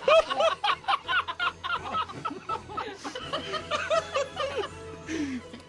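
Several people laughing and chuckling, with quick repeated ha-ha pulses strongest in the first second or so and more chuckling later on.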